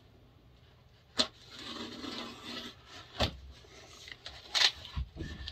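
A knife slitting the packing tape on a cardboard box, then the cardboard flaps being pulled open: scraping and rustling, with three sharp snaps about a second, three seconds and four and a half seconds in.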